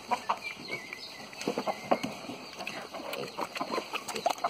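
Pigs eating wet mash from a tub: an irregular run of short smacking sounds, with chickens clucking close by.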